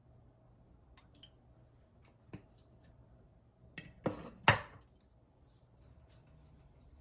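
Kitchen things being handled on a counter: a few light clicks and a single knock, then two louder clattering knocks in quick succession a little past halfway, the second the loudest.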